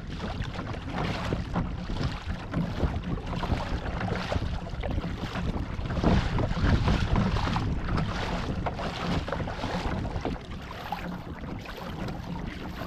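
Sea kayak being paddled through choppy water: the double-bladed paddle dipping and splashing with each stroke and water slapping the hull, under steady wind buffeting the microphone.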